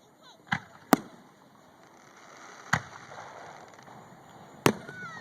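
Aerial fireworks bursting: four sharp bangs, the loudest about a second in and near the end.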